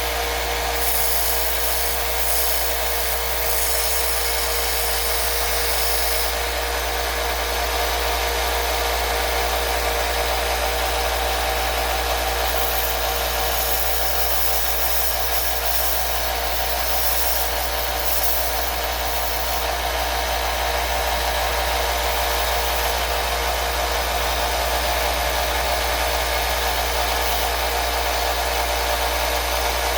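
A motor-driven machine running steadily, with a constant low hum and a hiss that grows and fades in the highs now and then.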